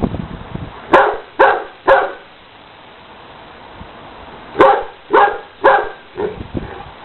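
Pet dog barking in two runs: three barks about a second in, then after a pause four more, the last one fainter.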